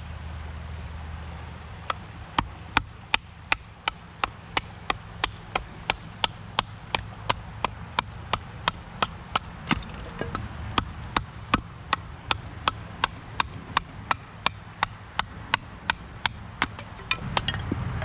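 Knife being batoned down through a wooden stick to split kindling, struck with a chunk of split wood: a long run of sharp wooden knocks, about two to three a second, starting about two seconds in.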